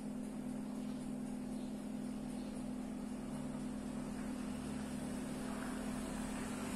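A steady machine hum with one constant low tone and a hiss, unchanging throughout; the diced pepper landing on the meat makes no sound that stands out.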